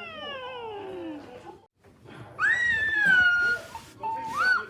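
A cat meowing and yowling in three calls: a long call falling in pitch, a higher drawn-out call about two and a half seconds in, and a short rising call near the end.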